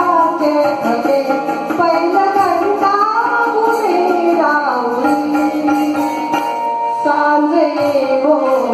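A woman singing a Marathi song into a microphone over instrumental accompaniment, the melody gliding between long held notes.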